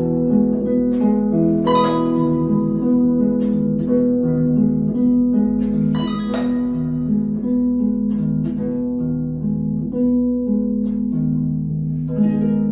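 Flute and harp duo playing a slow piece: plucked harp notes and chords under long held tones.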